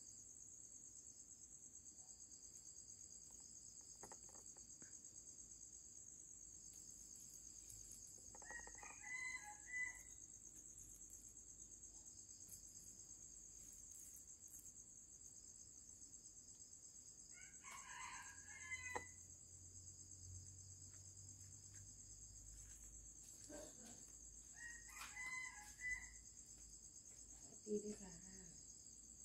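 A rooster crowing faintly three times, several seconds apart, over a steady high chirring of insects. A short knock near the end.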